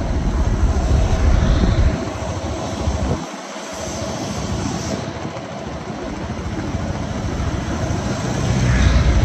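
Road and traffic noise heard from a moving vehicle, with heavy wind rumble on the microphone. The low rumble eases off about two seconds in, almost drops out briefly, and builds again near the end.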